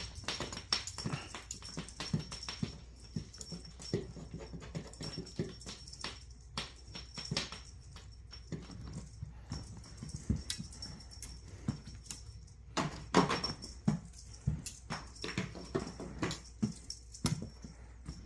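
A pet animal whimpering in short cries among many quick clicks and rustles.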